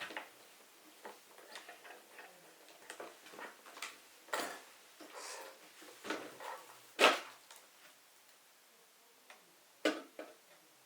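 Scattered light clicks and taps of a 1/10-scale RC crawler truck's plastic and metal parts being handled, with two sharper knocks about seven and ten seconds in.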